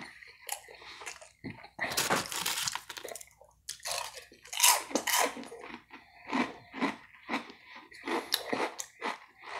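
A person chewing food close to the microphone, with irregular crunches and bites coming in uneven bursts.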